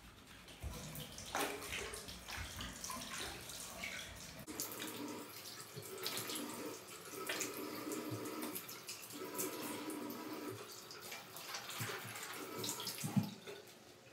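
Bathroom sink faucet running, with water splashing as it is cupped in the hands and onto the face to rinse off cleanser. A sharp thump near the end.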